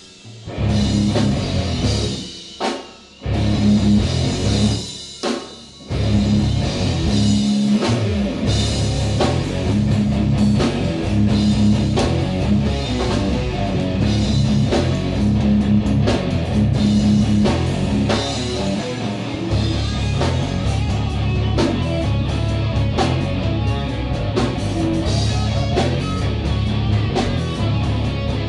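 Heavy metal band playing live: distorted electric guitars, bass guitar and drum kit. The first six seconds are stop-start hits broken by short gaps, then the band plays on steadily.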